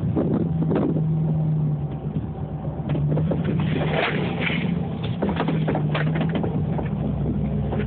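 Dodge Dakota pickup's engine running and revving up and down while doing donuts in snow, with scattered short knocks and clicks throughout.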